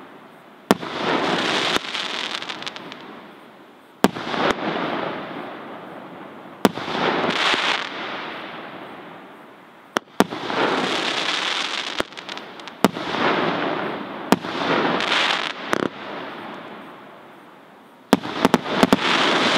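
Category 3 firework battery (Hirt & Co 'Orion') firing aerial shells one at a time: a sharp bang every few seconds, each followed by a second or two of crackling from the burst. Near the end several bangs come in quick succession.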